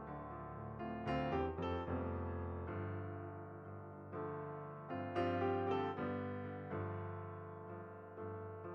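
Background piano music: calm, slow piano with chords struck and left to ring and fade.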